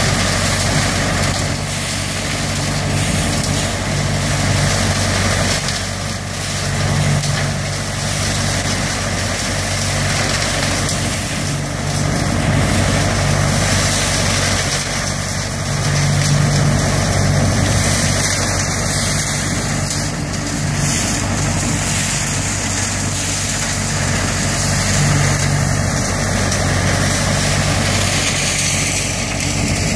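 ODB 650 trailer-mounted leaf vacuum running steadily, its engine hum under a loud rush of air and leaves being sucked through the intake hose and blown into the truck box.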